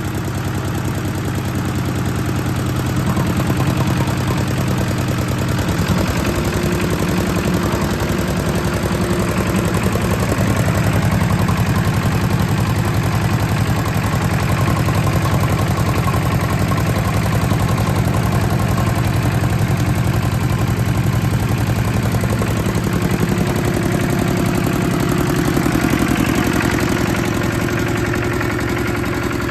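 Yanmar YS11Z single-cylinder diesel engine of a walk-behind tiller running steadily, its note shifting a little in speed a few times.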